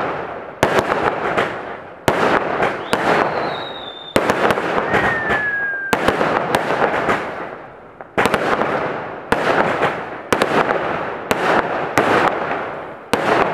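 Aerial fireworks going off in quick succession: sharp bangs every half second to second, each followed by crackling that fades, with a brief lull in the middle. A couple of short falling whistles are heard a few seconds in.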